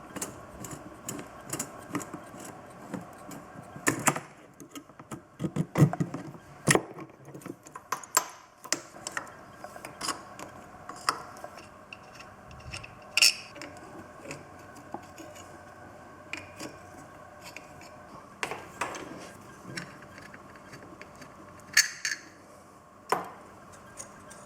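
Scattered clicks, taps and clinks of hand tools and small metal parts as a carburetor is unbolted from a quad bike engine, with a few sharper knocks.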